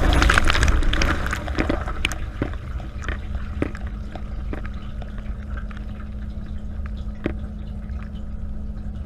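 Dishwasher wash cycle heard from inside the tub: water spraying loudly at first, dying down after a second or two to a steady pump hum with scattered drips and ticks.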